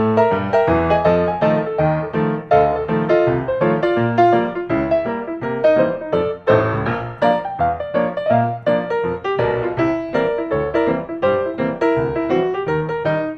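Background music: a bright, quick piano tune played note by note with a bass line underneath.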